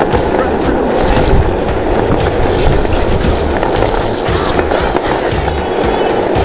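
Skateboard wheels of a homemade cooler-seat kart rolling on asphalt, a continuous steady rumble.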